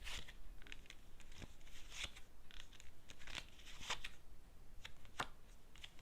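A deck of tarot cards being shuffled and handled: irregular soft swishes and light card snaps.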